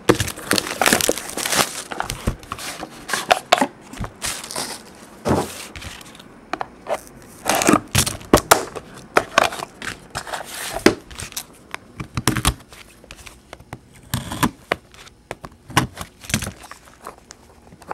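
Hands opening a Panini Dominion hockey card box: cardboard and wrapping rustling, crinkling and tearing, with many short scrapes and knocks at uneven intervals.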